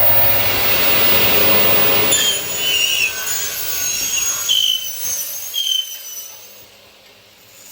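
Double-head 355 mm aluminium cutting saw running and cutting an aluminium profile: a loud hiss, then a series of short high-pitched squeals from about two seconds in, before the sound dies away about six seconds in.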